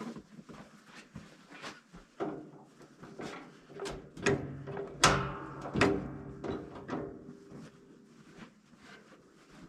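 Irregular knocks and metallic clanks of equipment being handled, with the loudest strikes about five seconds in, each followed by a brief ring.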